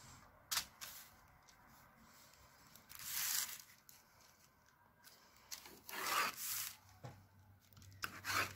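A plastic set square sliding over pattern paper and a line drawn along it with a pen, heard as two brief soft rubbing swishes about three and six seconds in, with light clicks near the start and near the end.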